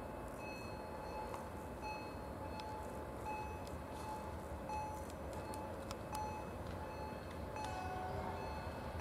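A bell-like ding with several pitches, repeating about once every three-quarters of a second, over the steady low rumble of an approaching 111Ed electric locomotive hauling a train of tank wagons.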